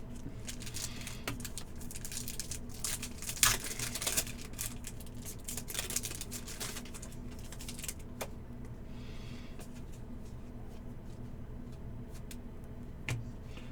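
Trading cards and packs being handled and flipped through: a run of soft clicks and rustles in the first eight seconds, a little louder about three to four seconds in, over a steady low hum.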